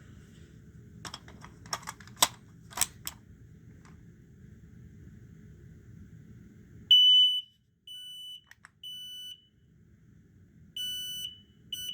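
A 1276 smoke alarm being tested. A few clicks of handling come first; about seven seconds in, its piezo horn sounds a shrill high beep, the loudest one. It then keeps beeping in the temporal-three pattern: three half-second beeps, a pause, then the next group.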